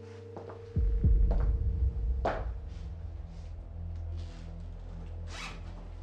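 Zipper of a leather holdall being pulled, several short strokes, over a low steady hum that comes in just under a second in.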